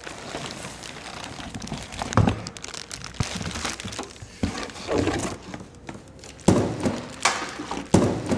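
Clear plastic bag crinkling and rustling around a MIG welder as it is lifted out of a cardboard shipping box, with several dull knocks against the box, the loudest about two seconds in and a cluster near the end.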